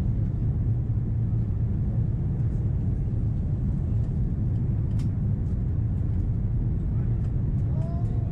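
Steady low rumble of engine and airflow noise inside an Airbus A330-300's cabin on its descent to land, heard from a window seat over the wing.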